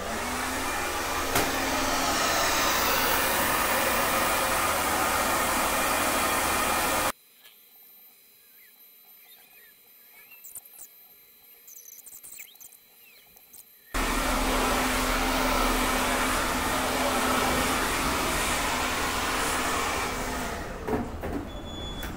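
Handheld hair dryer blowing during a blow-dry, a steady loud rush of air and motor. About seven seconds in it cuts off abruptly, leaving only a few faint clicks, then comes back on after about seven seconds and runs until near the end.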